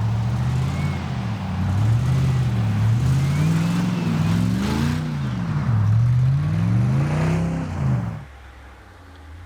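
Vehicle engine revving up and down repeatedly under off-road driving, then cutting off suddenly about eight seconds in.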